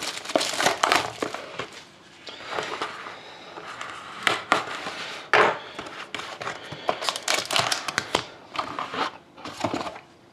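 A sealed trading-card box and its plastic wrapping being opened by hand: irregular crinkling and rustling of the plastic, with sharp crackles and rougher crushing sounds.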